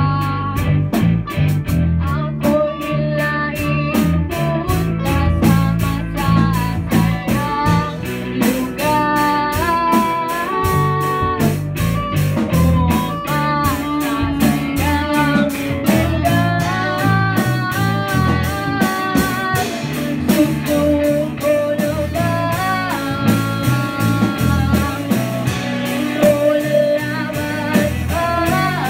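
A live rock band playing a song: electric guitars, bass guitar and a drum kit with steady cymbal strikes, and a gliding lead melody over them.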